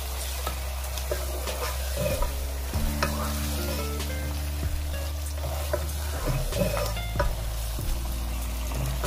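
Beef chunks frying in oil and onion-spice masala in a non-stick pan, sizzling steadily while a spatula stirs and scrapes them, with scattered clicks of the spatula against the pan. This is the bhuna stage, browning the meat in the masala.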